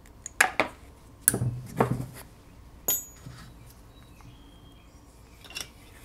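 Small metal parts of a golf-cart carburetor clicking and clinking as it is taken apart by hand: a handful of scattered clicks, with one brighter ringing clink about three seconds in.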